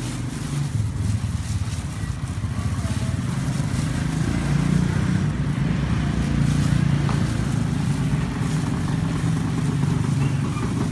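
A motor engine running steadily with a low rumble, getting a little louder about four seconds in.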